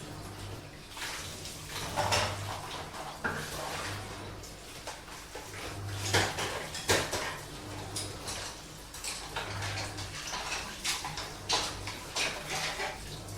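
Dishes and cutlery clinking and knocking against each other in running water, with some louder clanks about six and seven seconds in. Under it a washing machine's low hum pulses on and off roughly once a second as its drum turns.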